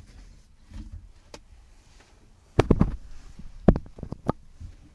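Handling noise from a microphone being picked up or adjusted: a cluster of sharp thumps and clicks about two and a half seconds in, and another a second later, over a quiet room.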